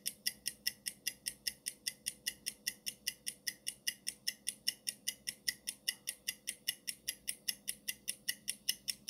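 Countdown-timer ticking sound effect: a steady, fast clock-like tick, about five ticks a second, marking the seconds running out on a timed question.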